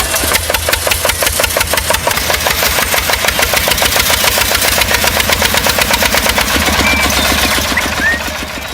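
Tractor engine running with a fast, even chugging rhythm, easing off slightly near the end.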